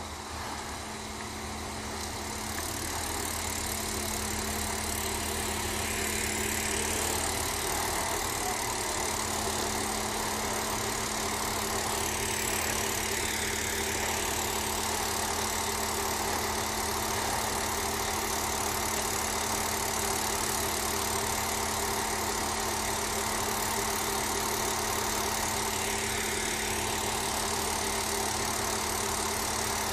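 The diesel engine of a PESA 222M (SA140) diesel multiple unit runs steadily, growing louder over the first few seconds as the train rolls in slowly along the platform. It then holds an even, idling drone as the train comes to a stand.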